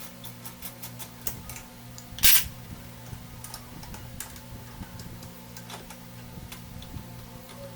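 Irregular light clicks and taps of work on a scooter, with one short, loud burst of noise about two seconds in, over a steady low hum.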